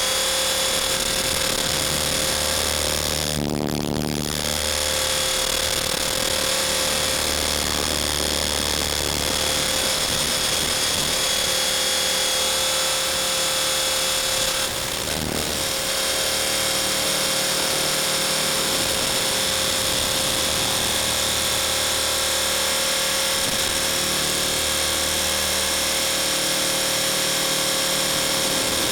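Blade 450 3D RC helicopter's electric motor and rotor running in flight: a steady machine whine made of several high tones over a rushing noise, briefly disturbed about four seconds in and again about fifteen seconds in.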